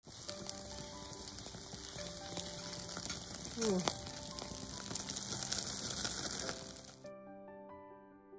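Wagyu beef marrow bones sizzling on a wire grill over a charcoal fire, under background music. The sizzling stops suddenly about seven seconds in, leaving only the music.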